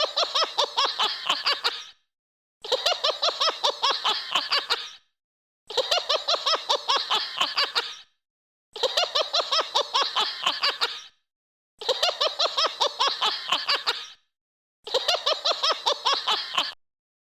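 A high-pitched laugh of rapid 'ha-ha-ha' pulses, about six a second. The same burst of about two seconds plays six times in a row with short silent gaps, a looped laughter sound effect.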